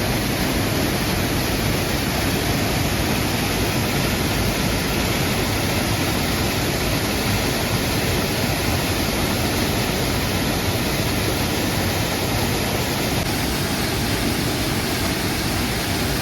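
A waterfall with water pouring down steadily. It makes an even, unbroken rushing noise that is strong from the deep lows to the highs.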